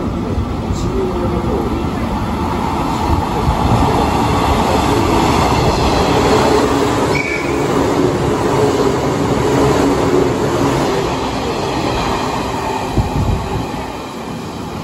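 JR 185-series electric express train running in alongside a station platform: a steady rumble of wheels on rail with traction-motor hum, and a brief squeal about seven seconds in.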